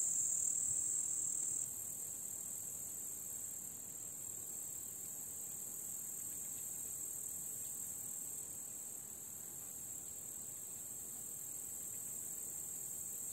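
Crickets chirring in a steady, unbroken high-pitched trill, a little quieter after a cut about two seconds in.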